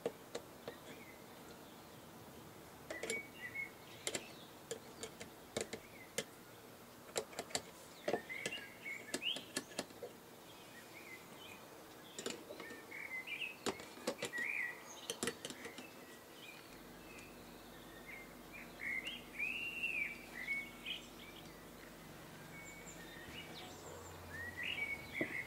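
Faint bird chirps in short, scattered phrases, mixed with light clicks of small metal parts being handled.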